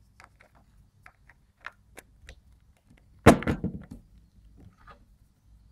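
Light clicks of a Super 8 camera's battery grip being handled, then a little past three seconds in a short clatter as AA batteries drop out onto a wooden table.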